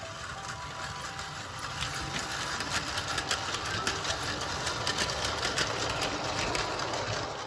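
Plarail battery-powered toy train running on plastic track: a small-motor whir with rapid clicking of the wheels over the track joints. It grows louder from about two seconds in, is loudest in the middle as the train passes close, and eases off near the end.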